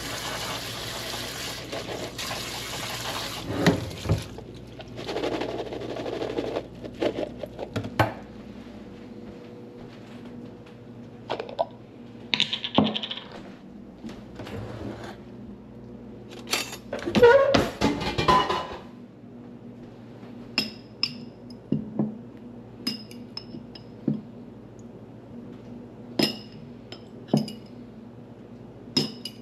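Kitchen tap running, turned off about three and a half seconds in, then dishes and utensils being handled: scattered knocks, a busier spell of clattering about two-thirds of the way through, and a string of sharp clinks with a short ring, roughly one a second, near the end.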